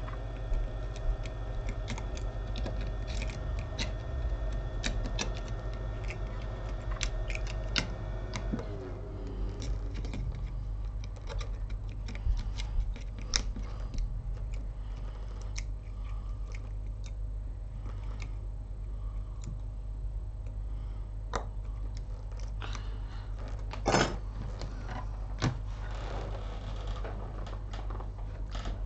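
Small scattered clicks and taps of metal tweezers and fingers working on an opened iPhone 6 logic board on a silicone bench mat, including a connector being pressed, with a sharper click about 24 seconds in. Under them runs a steady low electrical hum, and a whining tone stops about eight seconds in.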